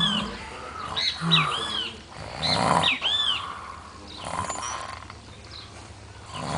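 A man snoring loudly inside a closed car, heard from outside it: a few rasping snores about every one and a half to two seconds. Birds chirp in the background.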